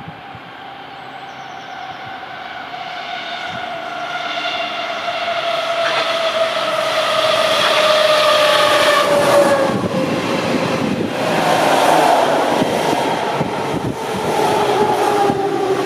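Berlin S-Bahn class 480 electric train approaching and passing at speed. A whine of several tones falling slowly in pitch grows louder for about eight seconds. Then the rush and wheel noise of the passing cars takes over, with the whine still under it.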